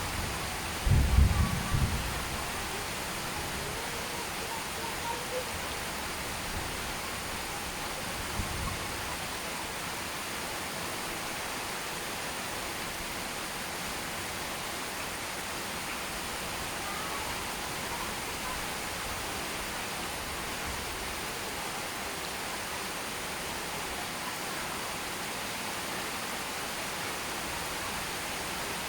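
Steady, even hiss of heavy rain falling. There is a brief low rumble about a second in and a fainter one a few seconds later.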